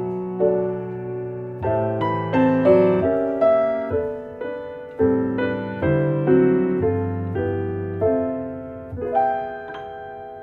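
Background piano music: gentle chords and melody notes struck about once or twice a second and left to ring, fading out near the end.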